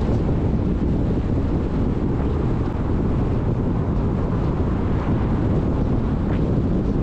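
Steady wind rumble on the microphone of a camera mounted outside a moving car, mixed with the car's road and tyre noise.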